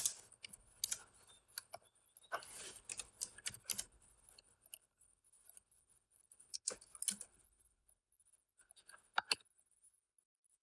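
Faint, scattered clicks and taps of a computer keyboard and mouse, with short runs of quick keystrokes about two and a half seconds in and near seven seconds, and two sharp clicks just after nine seconds.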